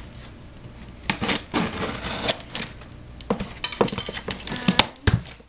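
Packing tape being picked at and peeled off a cardboard shipping box, with irregular rips, scratches and crackles starting about a second in. The cardboard flaps are handled and knocked, with a dull thump near the end.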